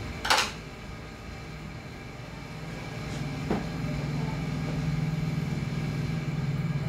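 A short clatter of handled metal and cable, then a click, after which a steady low hum builds and holds: a repaired inverter welding machine running, its cooling fan spinning up.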